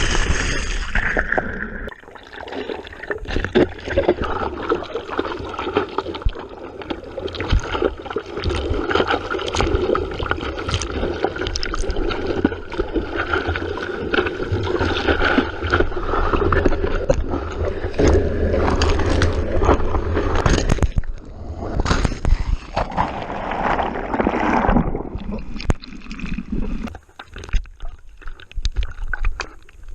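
Sea water splashing and sloshing around a GoPro camera in surf, with a low rumble of wind and water on the microphone; it turns quieter near the end.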